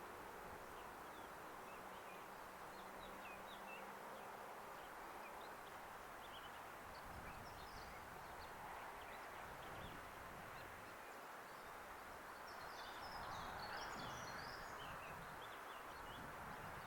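Faint outdoor ambience: a steady hiss with scattered short bird chirps, busiest a little past two-thirds of the way through.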